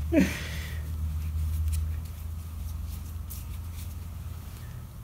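Gloved hands folding and squeezing a cloth rag, a soft rustle that fades after about two seconds, over a steady low hum.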